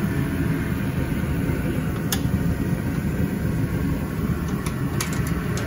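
Steady low rumbling hum of background machinery, with a few light clicks about two seconds in and again near the end.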